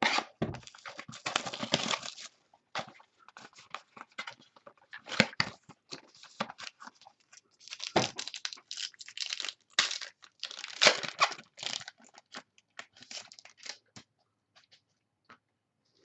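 A foil-wrapped trading card pack is torn open and crinkled by hand, and cards and plastic card holders are shuffled with small clicks. The crackling comes in irregular bursts and dies away near the end.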